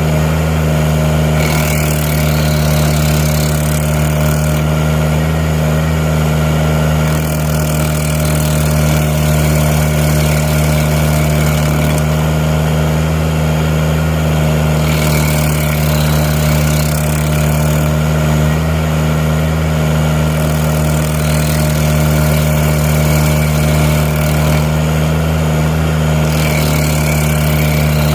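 Tobroco Giant SK252 mini loader's engine running steadily under load, driving a Klou KSG1-EX hydraulic stump grinder, with spells of harsher hissing noise every few seconds as the grinder works.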